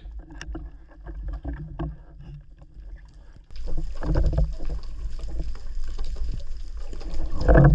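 Underwater sound from a spearfisher's camera: a low rumble of moving water with scattered short knocks as the diver handles the speargun and the speared fish. It grows louder after a cut about three and a half seconds in, with a louder burst near the end.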